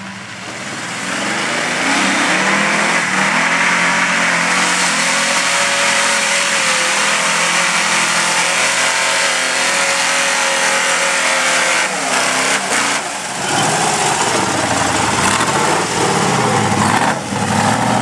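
Lifted square-body pickup truck's engine revving hard as it churns through a mud hole, its pitch rising and falling. It eases off briefly about two-thirds through, then revs up and down several times near the end as the truck climbs out and passes close by.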